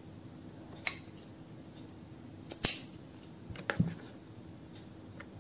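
Scissors snipping satin macrame cord: three short sharp snips, the loudest near the middle.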